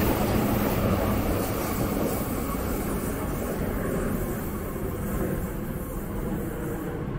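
A passing vehicle's rumble and hiss, the hiss fading away over the last few seconds.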